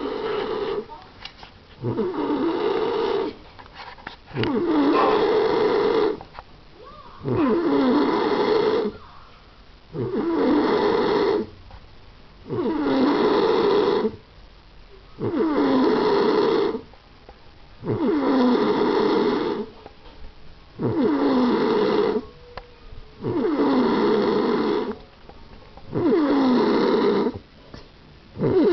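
A man snoring loudly and steadily in deep sleep, one long rasping snore about every two and a half seconds with quiet breaths between them.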